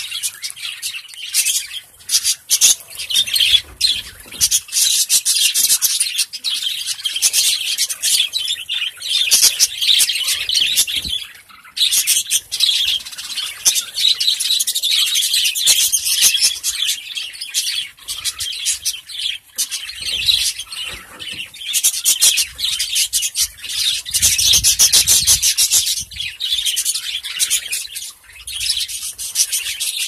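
A flock of budgerigars chattering and chirping continuously, a busy, high-pitched warble.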